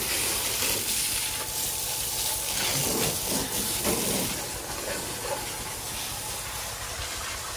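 Jet of water from a car-wash hose wand spraying mud off a pickup's side sill and wheel arch: a steady hiss of spray, easing slightly near the end.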